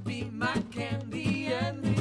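Background country-style music with stringed instruments such as guitar and fiddle.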